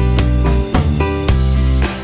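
Instrumental background music with a steady beat and a deep bass line.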